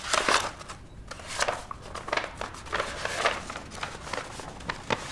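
Paper crinkling and rustling in irregular bursts as yellow wrapping is handled and unfolded.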